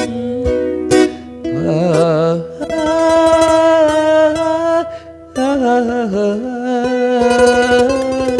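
Acoustic guitar playing a tremolo-picked melody fill between sung lines: each melody note is rapidly re-picked and held. A held sung note with vibrato wavers briefly about two seconds in.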